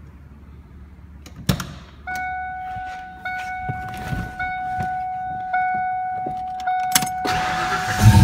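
1992 Ford Mustang GT's door-open/key-in-ignition warning chime repeating about once a second, after a sharp click and with keys rattling. Near the end the starter cranks and the 5.0-litre V8 catches.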